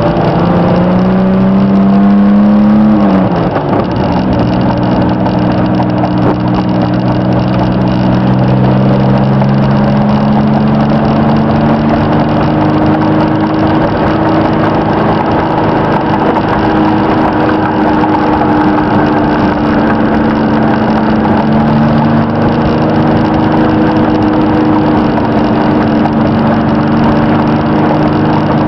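A 1992 Chevrolet S-10's 2.8-litre V6, heard from inside the cab while driving, with steady road noise underneath. The revs climb, drop sharply at a gear change about three seconds in, then rise slowly and hold steady as the truck cruises.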